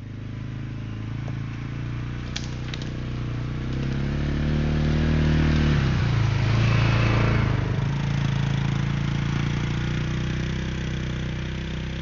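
Polaris Ranger 570 UTV with a single-cylinder engine driving past: the engine runs steadily and grows louder as it approaches. It is loudest as it passes close about six seconds in, with a rush of tyre noise, then fades as it drives away.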